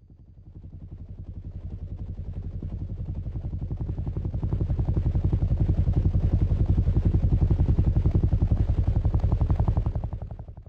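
Rapid, even low beating like spinning rotor blades: an end-screen sound effect that fades in, grows louder about halfway through, and fades out near the end.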